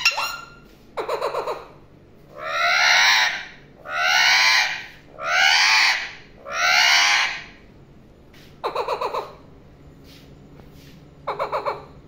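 Alexandrine parakeet calling: a short stuttering burst of about five rapid notes, then four loud drawn-out calls of about a second each in steady succession, then two more stuttering bursts, the last near the end.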